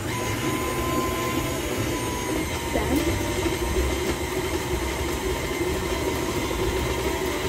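Electric mixer running steadily, beating cookie dough in a bowl.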